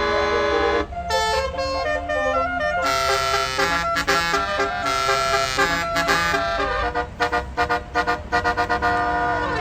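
Tour bus's Basuri 'telolet' musical horn playing a tune of stepped notes, ending in a quick run of short toots.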